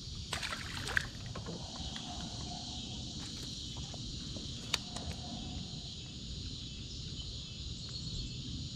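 Steady high-pitched chorus of summer night insects, with a few light clicks and knocks near the start and one sharp click about five seconds in.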